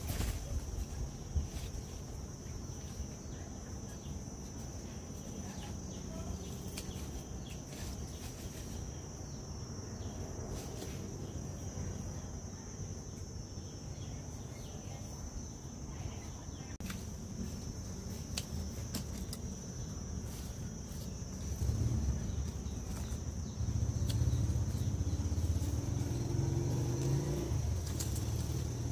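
Pepper elder leaves and stems rustling and snapping softly as they are handled, in scattered small clicks, over a steady high-pitched tone. A low rumble comes in about three quarters of the way through.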